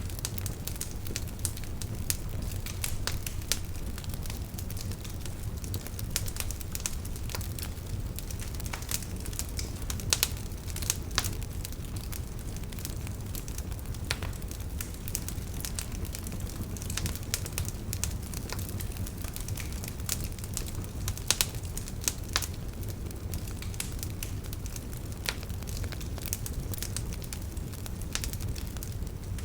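Wood fire burning with a steady low rumble and frequent irregular crackles and pops, a few louder snaps among them.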